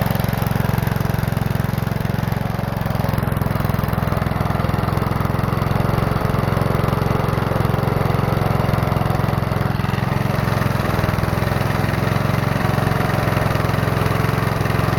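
Small engine with a draw-up (suction-feed) carburetor running steadily, not very smoothly; the owner reckons the carburetor is pretty much shot.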